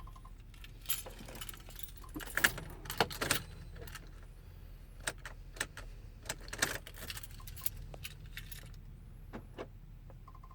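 A bunch of keys jangling and clicking as they are handled, with several sharper knocks among them. A pulsing electronic chime stops at the very start and starts again at the very end.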